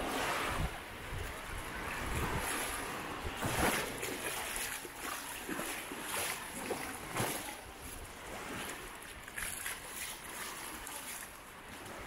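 Seaside ambience: surf washing on the shore, with wind buffeting the microphone, strongest near the start.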